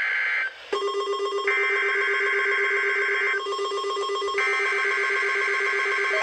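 Emergency Alert System data bursts: buzzy, screeching digital bursts about two seconds long with about a second between them. Beneath them a steady NOAA Weather Radio alert tone comes on less than a second in. Together they are the station's weekly test signal.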